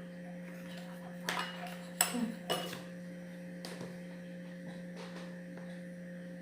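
A few light clinks and knocks of utensils against small containers, clustered around the middle, over a steady low hum.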